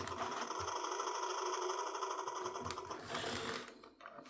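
VTech Toot-Toot Drivers toy bulldozer playing its electronic working sound: a steady, buzzing machine rattle through its small speaker that fades out after about three and a half seconds.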